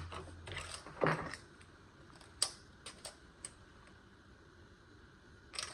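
A few scattered light clicks and taps of small objects being handled on a workbench, the sharpest click about two and a half seconds in.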